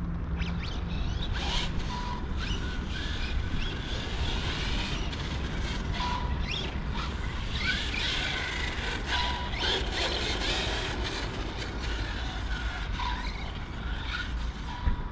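Brushless electric 1/10 radio-controlled cars driving on asphalt. The high motor whine rises and falls in pitch as they speed up and slow down, with short scrabbling noises from the tyres.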